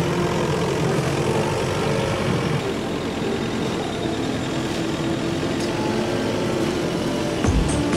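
A forklift running as it drives, a steady mechanical drone. A thudding music beat comes in near the end.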